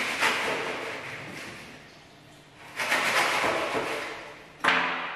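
A knife sawing through a foam pool noodle: three long cutting strokes, each fading out over about a second.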